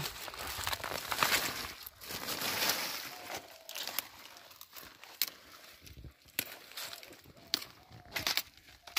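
A cauliflower plant being snapped and pulled up by hand: its large leaves rustle and crumple for the first few seconds, then several sharp separate cracks follow as the stalk and leaf stems break.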